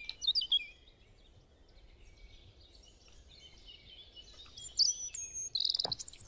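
Small birds chirping. A few short calls come at the start, then a quiet spell, then a busier run of chirps and quick trills in the last two seconds.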